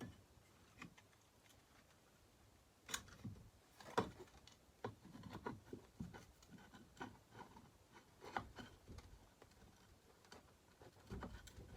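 Light, scattered clicks and taps of chainsaw parts being handled and fitted together as the starter and kill wire go back onto a Homelite XL-12. The sharpest knocks come about three and four seconds in.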